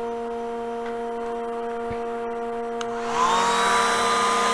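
A steady electric motor hum, then about three seconds in a hair dryer switches on: its fan whine rises briefly in pitch and settles into a steady rush of air.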